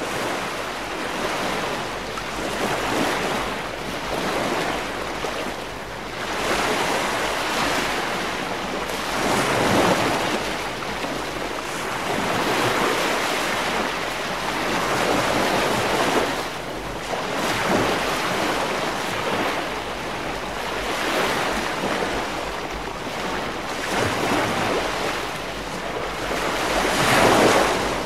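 Ocean surf: waves washing onto a beach, swelling and falling back every few seconds.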